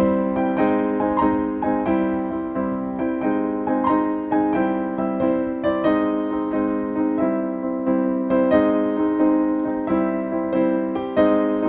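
Background piano music, a steady run of single struck notes and chords.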